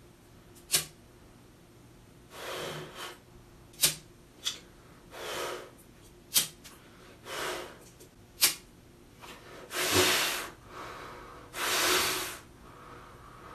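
A person breathing out forcefully, one noisy puff every two to three seconds, with a few short sharp clicks between the breaths.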